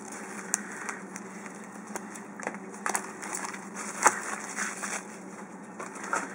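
Light crinkling of foil booster-pack wrappers and soft taps as the packs are handled and set down, a handful of short separate sounds over a faint steady hum.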